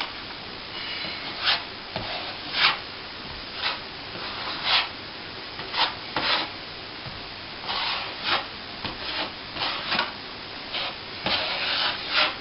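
Plastering trowel scraping across plaster on a plasterboard wall in short, irregular strokes, spreading or smoothing the patch over the hole.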